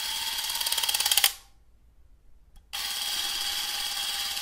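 Mechanical whirring sound effect, a steady hiss with a faint hum in it, overlaid with a rapid run of clicks that grows louder and cuts off about a second in. After a second of silence the whirring starts again.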